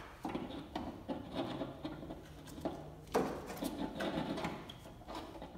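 Clutch master cylinder being worked into place over its mounting bolts on the firewall: a string of irregular knocks, clicks and rubbing as the parts are handled, with the sharpest knock about three seconds in.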